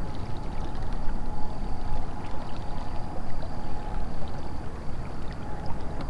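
Water trickling and lapping along the hull of a moving kayak, over a steady low rumble, with a faint high whine.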